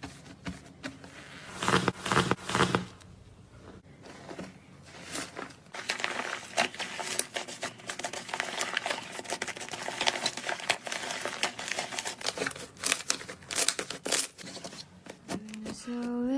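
Slime being handled and pressed, with dense crackling and small popping clicks; a few louder crunches come about two seconds in, then steady crackling runs through most of the rest.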